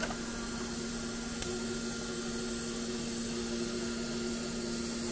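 TIG welding a 321 stainless steel exhaust manifold's runners to its flange: a steady hiss with a low hum from the welding set, and one faint tick about a second and a half in.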